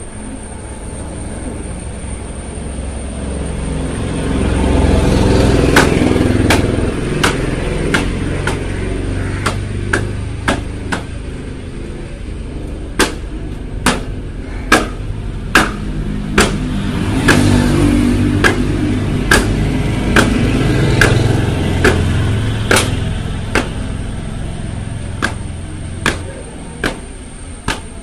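A low rumble that swells and fades twice, with a string of sharp knocks, one or two a second, through most of it.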